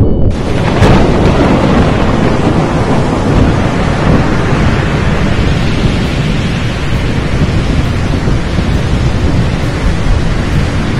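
Storm sound effect: thunder over a steady, loud rushing noise, with a sharp crack about a second in.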